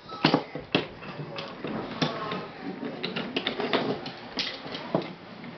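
Wooden toy trains and track pieces knocking and clattering on a wooden train table, with irregular light clicks and a few sharper clacks.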